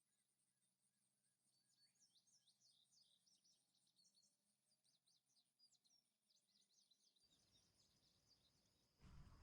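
Faint songbird chirping: a run of quick, high chirps starting about a second and a half in. Near the end a louder noise comes in, like rustling or handling.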